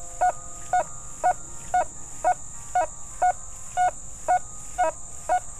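Nokta Fors Core metal detector giving short beeps of one steady pitch, about two a second, as the coil is swept back and forth. It is a repeating coin tone from a dime lying under a rusty nail, heard through the detector's iron discrimination.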